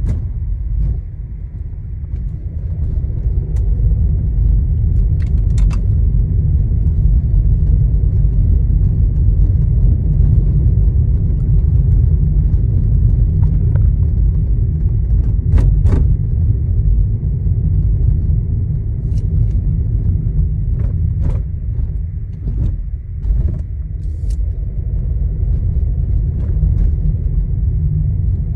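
Inside a moving Skoda Kushaq 1.0 TSI automatic: steady low road rumble, with scattered short clicks and knocks at irregular moments from interior trim rattling. The owner traces the rattles to the dashboard, centre console and doors.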